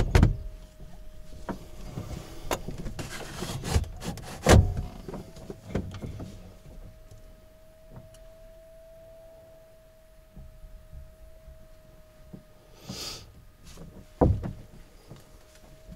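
Irregular knocks, thumps and rubbing from handling inside a glider cockpit, the loudest about four and a half seconds in and near the end, over a steady high electronic tone.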